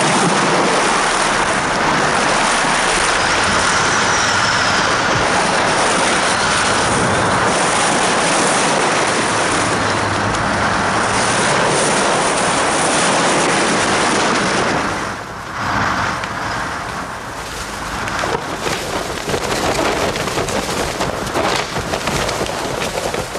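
Heavy storm surf breaking against a pier, a loud, dense wash of waves and wind. About fifteen seconds in it gives way to strong, gusty wind.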